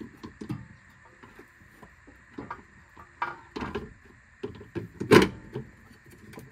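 Scattered metallic knocks and clunks as a complete front strut assembly is lifted and worked up into the wheel well. Several clunks come a little past three seconds in, and the loudest knock about five seconds in.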